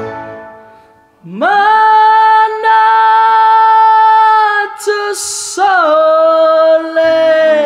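The karaoke track fades out over the first second, then a man sings into a karaoke microphone. His voice glides up into one long held high note, takes a breath about five seconds in, and goes into a second held note.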